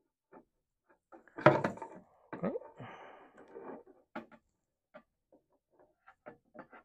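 Light clicks, knocks and scrapes of a float fuel sender being worked by gloved hands through the access hole of a sealant-coated fuel tank plate and its metal flange seated against it, with the loudest knock and a short scrape about a second and a half in.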